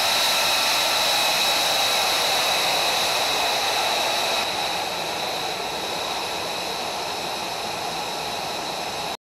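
F-35 fighter's jet engine running on the ground at idle: a steady rushing hiss with a high-pitched whine, dropping slightly in level about halfway through.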